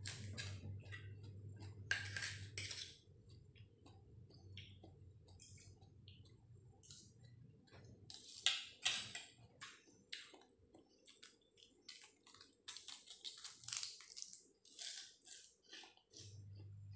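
A person chewing and crunching a mouthful of spicy pounded rice-noodle salad (tam khao poon) with raw greens: irregular wet clicks and crunches, loudest about eight seconds in and again around thirteen to fifteen seconds.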